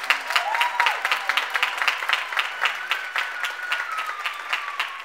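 Audience applauding after the music ends, with dense, steady clapping. A few voices call out over it, one in a long call that slowly falls in pitch in the second half.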